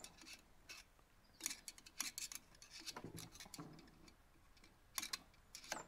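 Faint, scattered metallic clicks and scrapes of a screwdriver tip picking at the valve collets of a compressed valve spring on a Citroën 2CV cylinder head.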